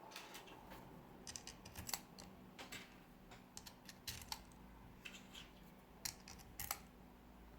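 Light, irregular clicks and taps of small screws and plastic parts being handled and fitted during reassembly of a BMW iDrive controller.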